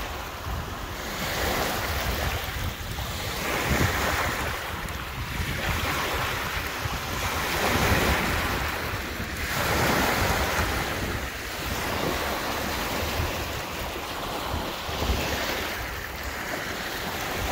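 Lake waves washing onto a rocky shore, the wash swelling and falling every two seconds or so, with wind rumbling on the microphone.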